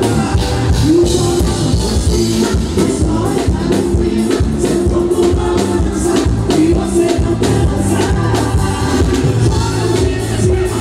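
Forró band playing live with a sung melody over a steady beat.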